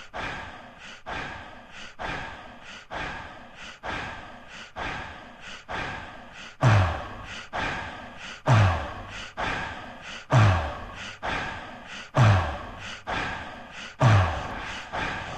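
Dance music with a steady beat; about six and a half seconds in, a deep booming bass drum with a falling pitch comes in, hitting roughly every two seconds.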